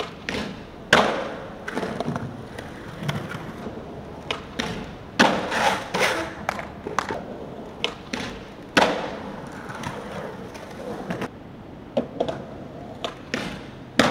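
Skateboard clacking and clattering on a metal stair handrail and steps during repeated tries at a rail trick: a string of sharp knocks, the loudest about one, five and nine seconds in.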